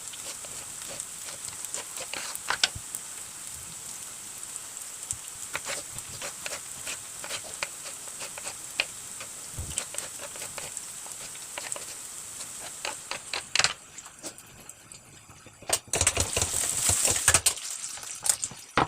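Onions and green chillies sizzling as they fry in ghee in a kadhai, with scattered utensil clicks. A louder rush of noise lasts about two seconds near the end.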